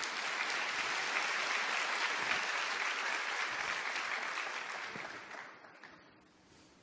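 Audience applauding, a steady spread of clapping that dies away about five seconds in to near silence.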